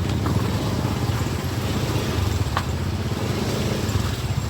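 Honda Supra 100's single-cylinder four-stroke engine running steadily while the motorcycle is ridden, with one brief sharp tick about two and a half seconds in.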